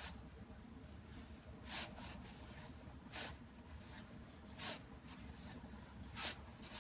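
A rag rubbing along a motorcycle drive chain as it is wiped clean, in four short strokes about a second and a half apart, over a faint low hum.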